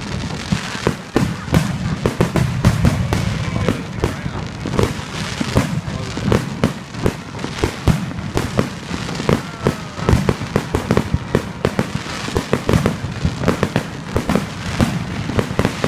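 Fireworks going off in a dense, continuous run of bangs and crackles, several a second, with a few faint whistling glides among them.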